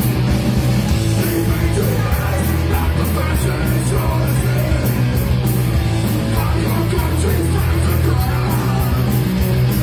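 Live rock band playing loudly, with a driving drumbeat.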